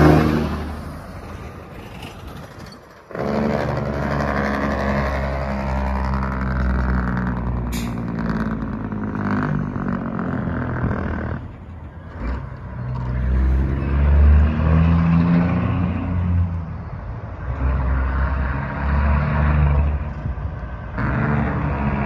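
Diesel engine of a custom straight-piped Peterbilt 379 running loud, its pitch rising and falling several times, with a brief dip about twelve seconds in. It comes in suddenly about three seconds in, after the tail of an air horn fades in the first second.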